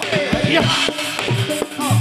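Percussive music: quick drum strokes with short, held, pitched notes and some gliding ones, the kind of accompaniment played for Javanese Warok and jaranan dances.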